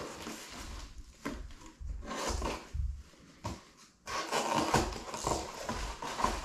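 A cardboard box being opened by hand: scattered scrapes and clicks of tape and cardboard being worked, then a busier run of cardboard rubbing and rustling from about four seconds in as the flaps are pulled open.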